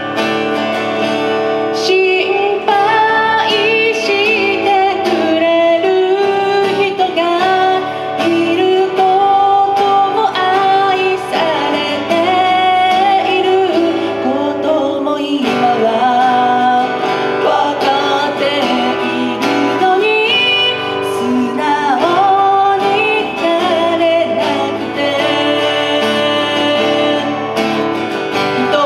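A woman sings to her own acoustic guitar in a live solo performance, voice and guitar amplified through a microphone and the guitar's cable.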